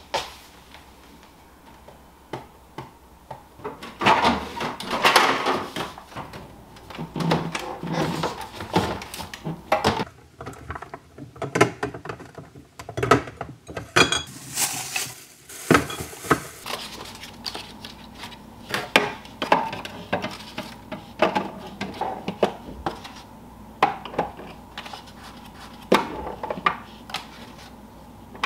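Groceries being put away in a refrigerator: a run of irregular clicks, knocks and clinks of items set onto plastic shelves. Near the end, eggs are placed one by one into the door's egg tray.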